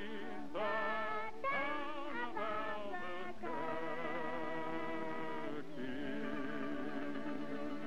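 Old film-soundtrack music: an instrumental break in a western cowboy song, a wavering melody over held chords, settling into one long held chord a little past halfway.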